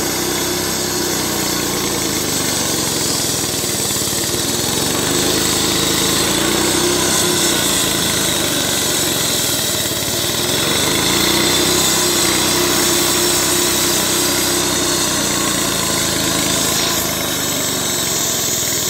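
Diesel-engined concrete floor saw cutting a wet concrete slab: a steady engine drone under load with the diamond blade's grinding hiss, the engine note rising and falling slowly every few seconds.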